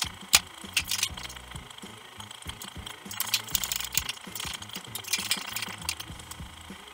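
Knocks and rattles of metal parts and hand tools being handled during trailer assembly: one sharp knock about a third of a second in, then scattered clatter and short scraping noises.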